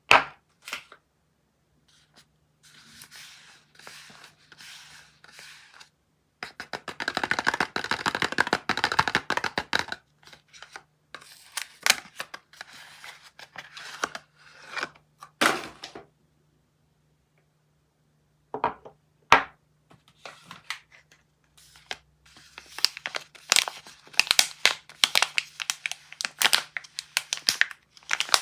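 Soap packaging being torn and crinkled open: a long stretch of dense tearing and crackling, a few sharp snaps, then more crinkling near the end.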